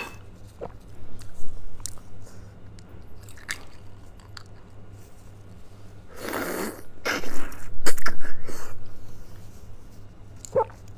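Close-miked wet chewing and mouth sounds of someone eating spicy braised beef bone marrow. About six seconds in comes a loud slurp lasting about a second as marrow is sucked from a hollow bone section, followed by a quick run of chewing smacks.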